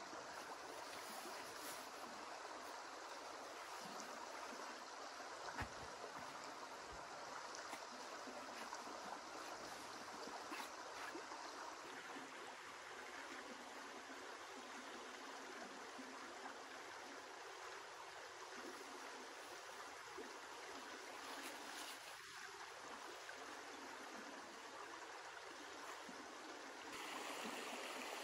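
A river flowing steadily, heard as an even rush of water that grows a little louder near the end. A single soft thump about five and a half seconds in.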